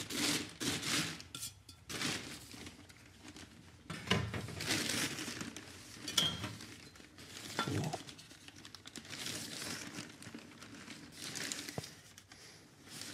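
Scoop scraping and rustling in metal containers as magnalium (magnesium-aluminium alloy) powder is weighed out, in irregular bouts, with light clinks of metal on metal and a sharper ringing clink about six seconds in.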